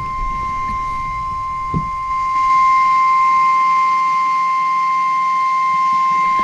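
NOAA Weather Radio's 1050 Hz warning alarm tone: one steady, unbroken beep, a little louder about two seconds in. It is the attention signal that comes before a warning broadcast, here a tornado warning.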